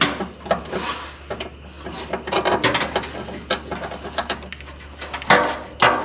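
Irregular metal clicks, clinks and rattles of ring terminals and a nut being worked by hand on a battery ground stud that holds several grounds. A quick run of clicks comes about two seconds in, and a few louder knocks come near the end.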